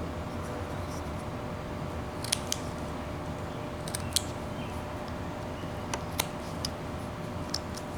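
Hand carving of wood with a knife: a series of short, sharp cutting snicks, some in quick pairs, scattered irregularly over a steady low hum.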